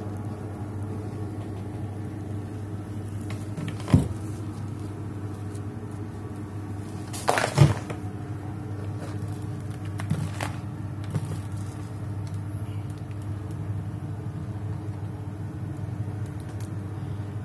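A steady low mechanical hum, like a running motor or appliance, with a sharp knock about four seconds in, a louder cluster of knocks just past the middle, and a few fainter knocks after that.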